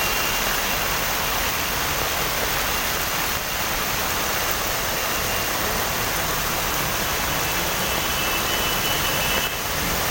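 Heavy monsoon rain pouring down as a dense, even hiss.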